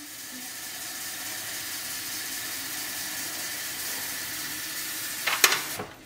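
Tap water running steadily into the Breville Barista Pro's plastic water reservoir as it is filled. Near the end there is a sharp knock and the flow stops.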